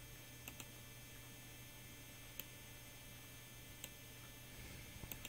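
Near silence with a faint steady mains hum and a handful of soft, separate clicks from a computer mouse.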